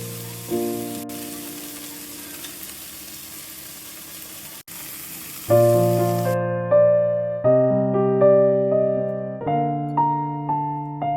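Background piano music with slow, decaying notes. Under it a steady frying sizzle runs through the first half and cuts off suddenly about six seconds in.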